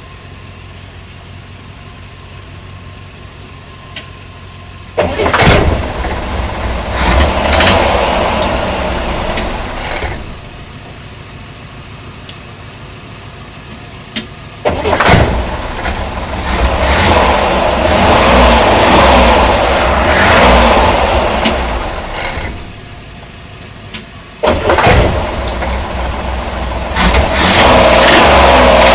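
Chevrolet Corvair's air-cooled flat-six engine running with its belt off, idling and then revved three times, each rev coming on suddenly and held for several seconds before dropping back to idle. The engine has a knocking noise the owner cannot place.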